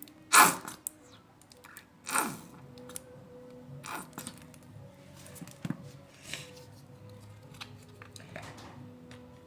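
Short crunching, crackling handling noises, the two loudest about half a second and two seconds in, followed by smaller crackles, over a faint steady background tone.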